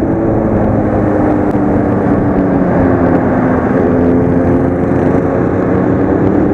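Motorcycle engine running steadily under way in traffic, heard from on board the bike, its pitch dipping slightly and then climbing again. Wind and road noise run underneath.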